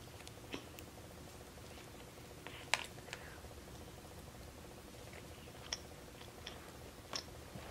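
Quiet eating by hand: a few faint, scattered small clicks and smacks from picking at seafood and licking fingers, the sharpest about three seconds in, over low room hum.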